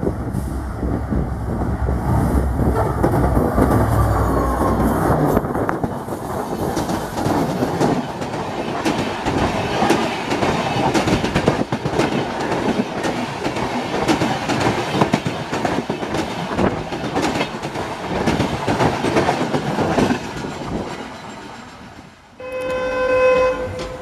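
A diesel locomotive passing at speed with its engine running, then a long rake of passenger coaches rolling by with a rapid clickety-clack of wheels over rail joints, fading away. Near the end, after a cut, an electric locomotive sounds its horn in one short multi-tone blast.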